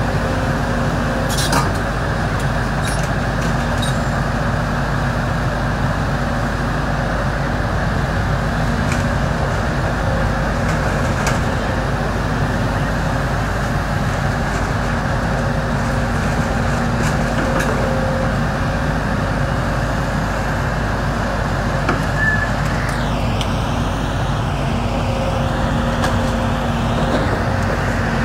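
Volvo crawler excavator's diesel engine running steadily while it works, with a low hum that comes and goes and a few short clinks of debris.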